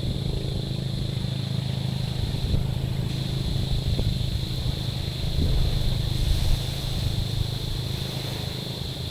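Small waves lapping on a rocky, pebbly shore as a steady low wash, with a few faint clicks of stones.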